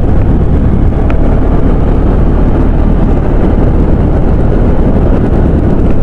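Motorcycle riding along at a steady speed: the engine running under a loud, steady rush of wind and road noise on the handlebar-mounted microphone.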